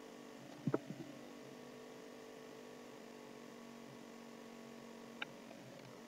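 Computer mouse clicks: a quick cluster of sharp clicks about a second in and one more click near the end, over a faint steady low hum.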